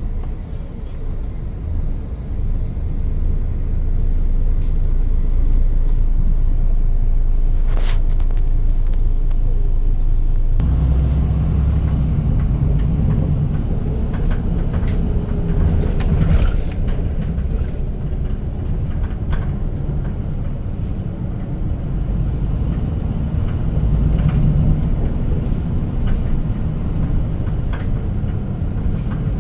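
A city bus's engine and road noise heard from inside the cabin as it drives: a steady low rumble with a few light knocks, growing heavier about ten seconds in.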